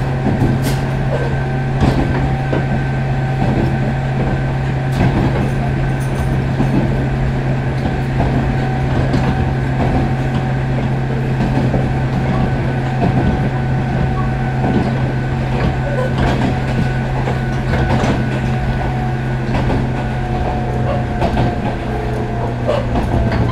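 JR West 105 series electric train running, heard from inside the motor car KuMoHa 105-10: a steady hum and whine from the traction motors and gears, with the wheels clicking over rail joints. Near the end the whine drops slightly in pitch as the train slows.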